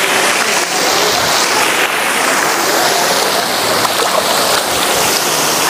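Fountain jets spraying and splashing into a pool of water: a steady rush of falling water.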